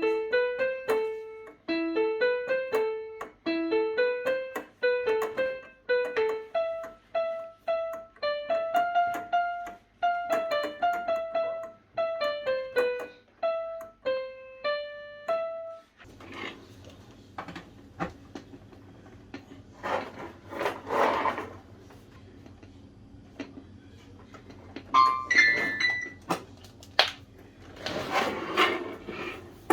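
A simple piano-like keyboard melody of single notes for about the first half. After that come irregular clicks and rustling handling noises, with a short electronic tone about 25 seconds in.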